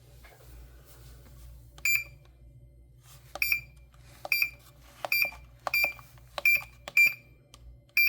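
GE WB27T10327 oven range control board beeping as its touch keypad is pressed: about seven short, identical high beeps at irregular spacing, several with a light click of the key press just before.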